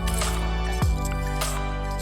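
Background music: steady synth chords over a bass that drops in pitch about a second in, with a regular beat.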